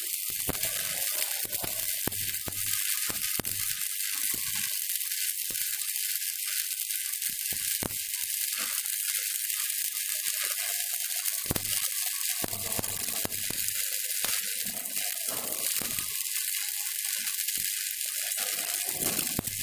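Manual metal arc (stick) welding arc on mild steel plates, with a steady crackling hiss as a weld bead is laid along a butt joint.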